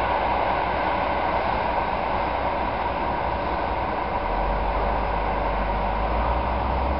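Steady rolling noise of an express passenger train running away along the tracks, with a deeper low rumble that strengthens about four seconds in.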